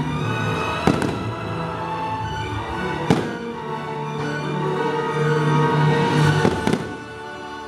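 Fireworks bursting over continuous show music: sharp bangs about a second in, another at about three seconds, and two in quick succession near the end.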